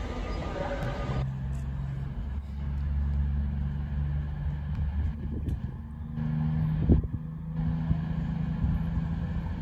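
Train engine running with a steady low drone; its pitch steps up a little about six seconds in. A single sharp clank about seven seconds in.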